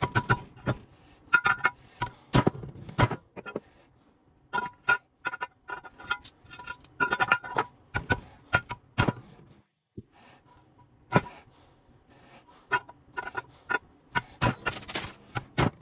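Irregular metallic clinks and knocks of transfer case parts and hand tools being handled, some ringing briefly at the same pitch each time.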